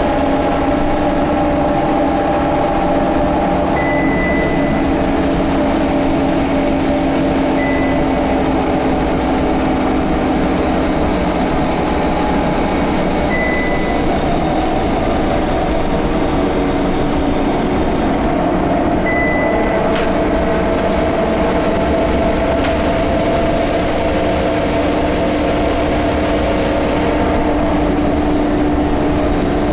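Scania K230UB single-deck bus running under way. A loud, high whine slowly rises and falls, over steady lower droning tones. These are strange noises that the owner puts down, with some doubt, to the turbo and the hub reduction axle. A few short, faint beeps come every few seconds.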